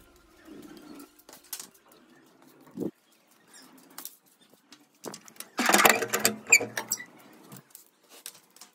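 Handling sounds of laundry and plastic clothes pegs: scattered clicks and light rustling, with a louder rustling clatter lasting about two seconds, beginning about five and a half seconds in.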